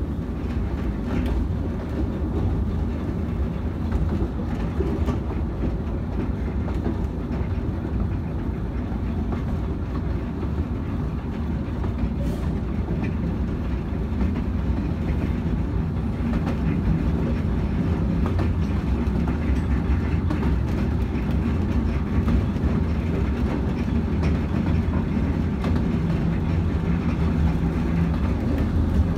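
Ravenglass & Eskdale miniature railway carriage running along the track: a steady low rumble of wheels on rails with faint scattered clicks, growing slightly louder about halfway through.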